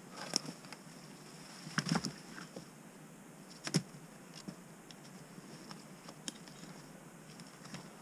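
Dead branches cracking and snapping as they are broken off and pulled through snowy undergrowth: a few sharp cracks, the loudest about two seconds in and just before four seconds, with lighter twig crackles between.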